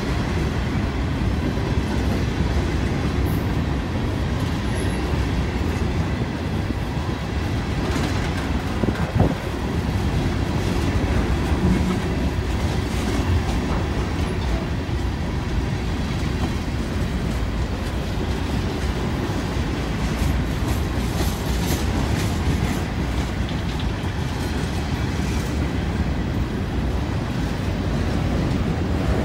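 Freight cars rolling past at close range: a steady heavy rumble of steel wheels on the rails with clacking over the rail joints. There is a single sharper knock about nine seconds in.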